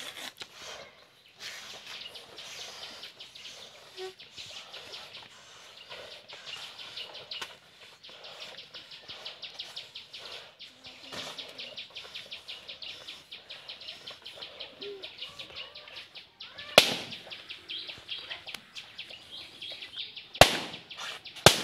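Rubber balloons popping: three sharp bangs, one about two-thirds of the way through and two close together near the end. These are the loudest sounds, heard over a steady rapid high ticking or chirping from outdoors.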